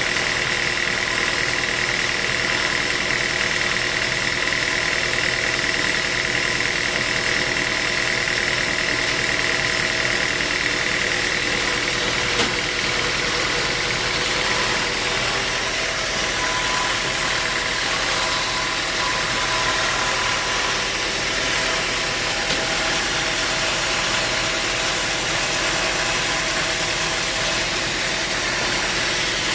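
Sawmill machinery running steadily, an engine-like hum with a high whine in the first half and an occasional faint knock.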